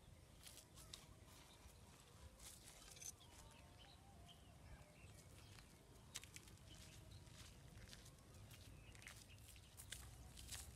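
Near silence: faint outdoor ambience with scattered soft clicks and faint distant bird calls.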